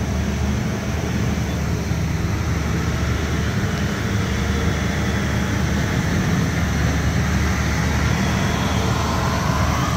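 Steady low engine drone of heavy road-works machinery running at a distance, with an even hiss over it.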